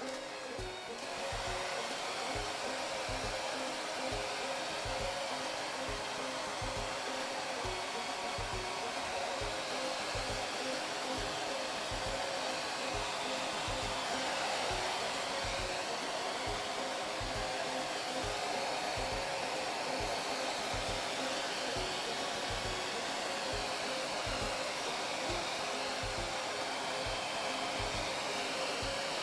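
Handheld human hair dryer blowing steadily, used to dry a wet cat after a shampoo.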